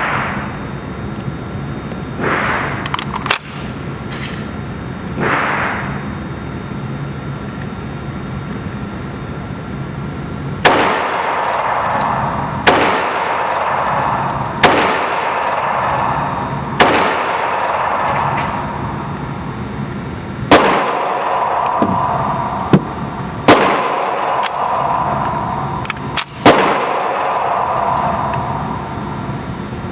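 CZ 97B .45 ACP pistol firing slow, aimed single shots, roughly two seconds apart, starting about a third of the way in, with a quick pair near the end.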